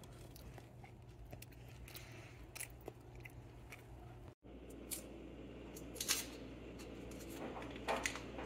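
Faint small crunches and clicks of a crumbly oatmeal cookie being eaten, then a few short crinkles of a paper wrapper being peeled off a stick of butter, over a faint steady low hum.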